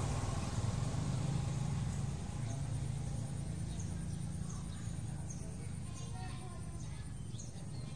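A low engine rumble that slowly fades away, with short high chirps repeating about twice a second in its second half and a thin steady high whine throughout.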